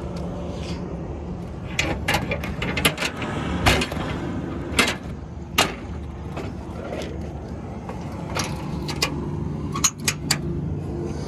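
Metal clanks and rattles as a truck's front grille panel is swung shut and its steel barrel-bolt latch is slid closed, a cluster of sharp clicks near the end. A steady low engine hum runs underneath.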